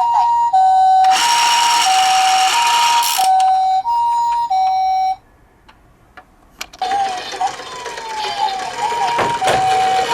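Toy ambulance minicar's two-tone "pi-po" siren, alternating between a high and a low note about every half second, with a rushing noise over it for about two seconds near the start. It cuts off about halfway through, a few clicks follow, and the siren starts again with a falling swoop before settling back into its two-tone pattern.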